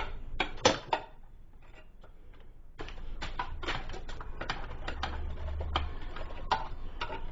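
Steel electrical box knockout being struck with a hammer on a screwdriver: a few sharp metal taps, a short pause, then a run of quick light metallic clicks as the knockout slug is worked loose.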